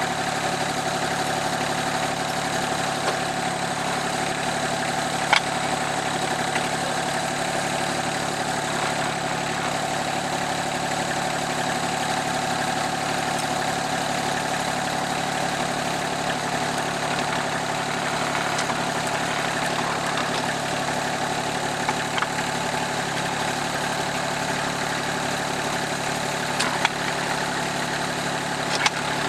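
Rural King RK24 subcompact tractor engine idling steadily, with a few short sharp clicks over the top.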